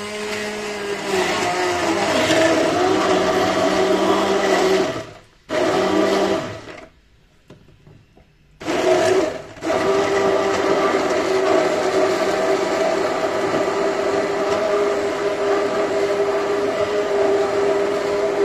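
Electric stick blender running in a tall plastic beaker, pureeing fried bread, almonds and garlic with water and olive oil into the ajopollo paste. It cuts out briefly about five seconds in and stops for a couple of seconds around seven seconds. It then starts again and runs steadily.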